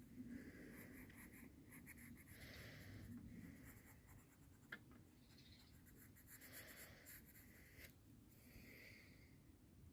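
Faint pencil strokes scratching back and forth on paper while colouring and shading, with one small click about halfway through.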